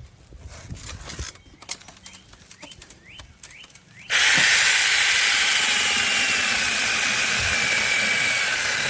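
Battery-powered brushless mini chainsaw starting suddenly about halfway through and running with a loud, steady whine whose pitch drifts slowly down. Before it, only faint clicks.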